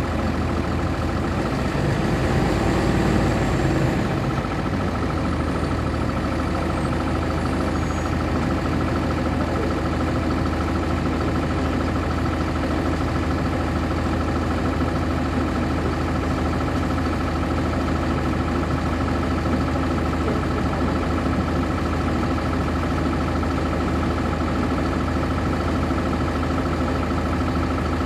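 Cummins ISC inline-six diesel engine of a 1999 NovaBus RTS transit bus running steadily, heard from inside the bus, a little louder for a moment about two to four seconds in.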